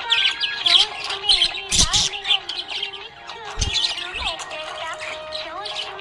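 Budgies chirping and twittering in quick, busy bursts over a background song with a gliding melody.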